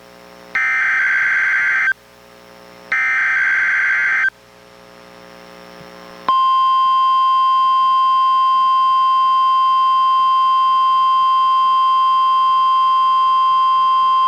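NOAA Weather Radio test signal through a weather radio's speaker. First come the last two bursts of the SAME digital header, each a harsh warbling data squawk of about a second and a half. About six seconds in, the steady 1050 Hz warning alarm tone starts and holds.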